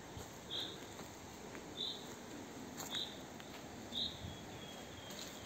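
A bird repeating a single short, high chirp about once every second, with a few faint clicks and rustles in between.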